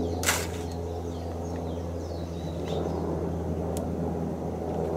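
Brief rustle of mango leaves about a third of a second in, as the cut-off top of the seedling is lifted away, over a steady low hum with faint high chirps.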